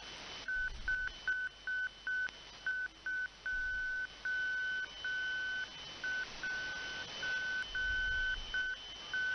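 Slow Morse code (CW) from a shortwave propagation beacon heard through a receiver: a single high beep tone keyed on and off in dots and dashes over steady band hiss.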